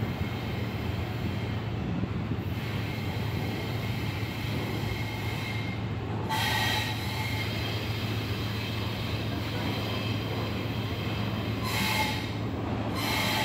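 Double-stack intermodal freight cars rolling past at speed: a steady rumble of wheels on rail with a high, thin wheel squeal over it. The squeal flares louder twice, about six and twelve seconds in.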